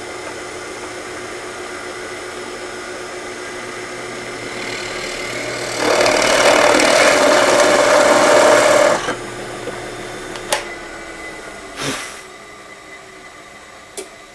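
Drill press running with a 3/4-inch spade bit, which bores into plywood for about three seconds in the middle, much louder while cutting. The motor is then switched off and its hum slides down as it winds down, with a few sharp clicks.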